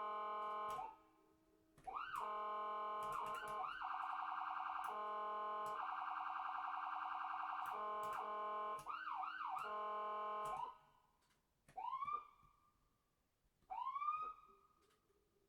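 Electronic ambulance siren sound effect cycling through patterns: short repeated rising whoops, then a fast warbling yelp for several seconds. It stops near the end, and two single whoops follow about two seconds apart, each rising and falling back.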